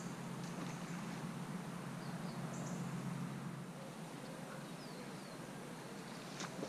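Riverside ambience: a steady low rush of flowing river water, with a few short, high bird chirps scattered through.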